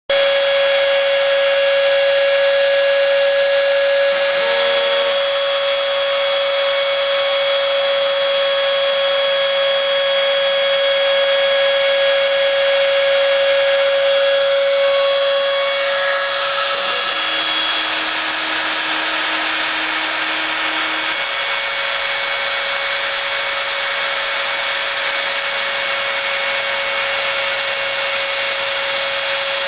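Home-built CNC router's spindle motor running steadily with a high whine while its bit carves hard foam. Short lower hums come in briefly about four seconds in and again from about seventeen to twenty-one seconds, as the machine's axis motors move the head.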